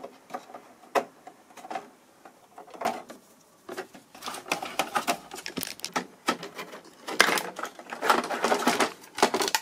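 Handling clatter from taking apart a Tektronix TDS744A oscilloscope: a screwdriver working screws in the metal chassis, and circuit boards and metal panels clicking and rattling as they are lifted. Scattered clicks at first, then a denser, louder run of rattling about halfway through.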